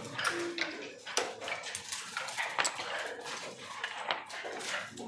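Backgammon checkers clicking and clacking on the board and against each other as they are moved in quick succession, many small sharp knocks.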